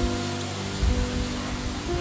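Background music with held notes and a low beat about once a second, over a steady hiss.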